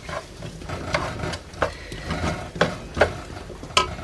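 Plastic spatula stirring diced potatoes frying in a non-stick pan, knocking and scraping against the pan five or six times over a faint sizzle.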